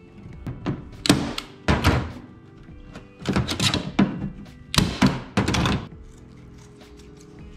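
Hand staple gun firing staples through carpet, about a dozen sharp thunks in quick clusters of two to four, stopping about six seconds in, over background music.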